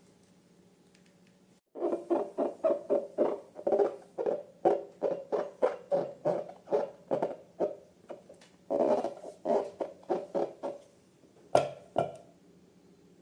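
Slime being worked by hand: a quick run of soft, wet squelching pats, about three a second, followed by two sharp clicks near the end.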